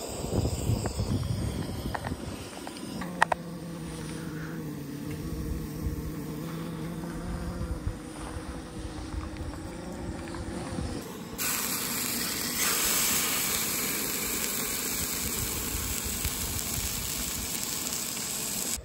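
Gas camp-stove burner running with a low rumble, and a click about three seconds in. Then a loud, steady hiss starts suddenly about eleven seconds in: a steak searing on a hot flat-top griddle.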